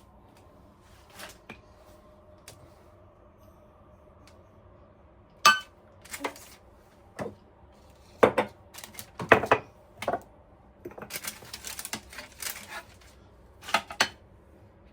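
Hard household objects being handled and set down: a series of separate knocks and clinks, with a quick run of light clattering about eleven to thirteen seconds in.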